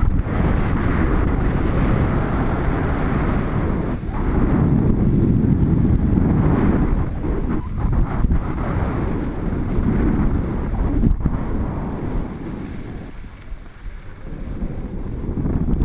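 Wind rushing and buffeting over an action camera's microphone while skiing downhill, swelling and easing with speed and dying down briefly near the end.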